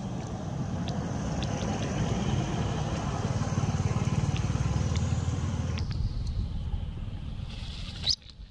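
A motorcycle passes by, its engine growing louder to a peak about four seconds in and then fading away. A single sharp click near the end is followed by a drop in level.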